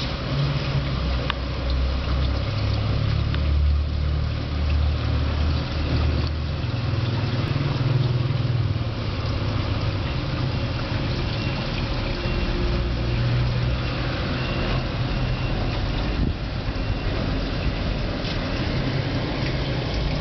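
Steady low mechanical rumble with a hiss over it, swelling and easing slightly, from a running motor.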